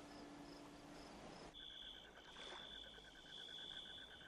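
Faint crickets chirping: a few short high chirps, then a steady high trill with a quick, even pulse that sets in about a second and a half in, over a soft background hiss.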